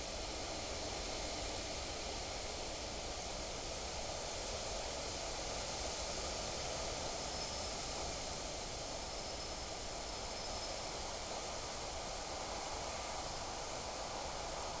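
Steady wind outdoors, a constant hiss with some rustling, and a faint thin high note about halfway through.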